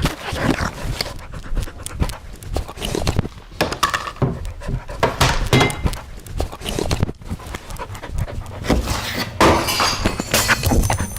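A dog panting, with irregular thuds and knocks throughout.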